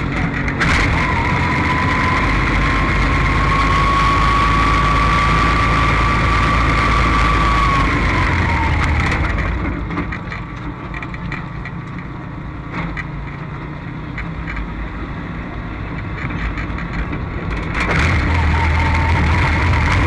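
Race car being push-started, its engine firing only intermittently, with a high, steady wheezing whine over a low rumble. The whine holds for several seconds, sinks and fades, and comes back near the end. The car is hard to start when hot.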